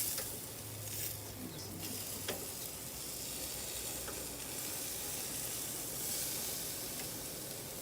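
Chicken sizzling on a barbecue grill: a steady hiss of fat cooking over the fire, with a few faint pops. The grill runs hot enough that dripping grease is flaring up and charring the meat.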